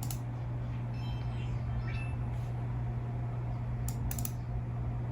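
Steady low electrical hum, with a few sharp computer mouse clicks at the start and twice close together about four seconds in.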